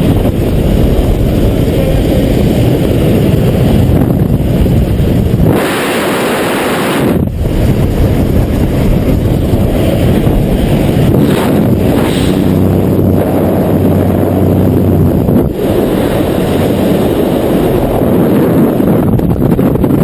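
Loud, steady wind rushing and buffeting over a helmet-mounted camera in a jump plane's open door, with the aircraft's engine droning beneath. After the skydivers exit, it carries on as freefall wind.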